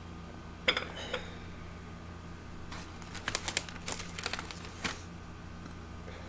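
A sharp knock about a second in, then a couple of seconds of quick clicking and crinkling from objects handled close to the microphone, over a steady low hum.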